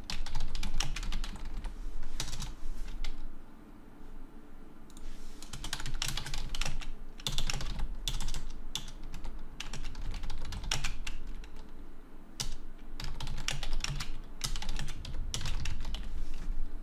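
Typing on a computer keyboard: quick runs of key clicks, broken by a pause of about two seconds a few seconds in.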